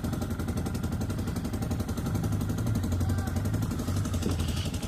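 ATV engine running steadily at low revs, slightly louder about halfway through.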